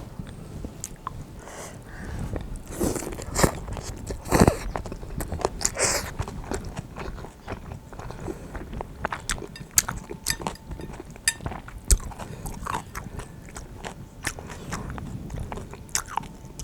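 Close-up eating sounds of spicy mixed noodles and crisp kimchi: wet chewing and crunching with many small mouth clicks, and a few louder noisy bursts in the first half.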